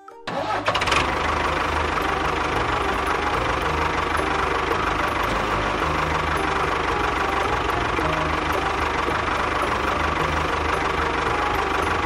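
A tractor engine starting about half a second in, then running steadily.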